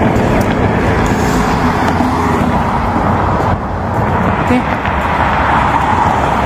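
Steady rush of road traffic, cars driving past.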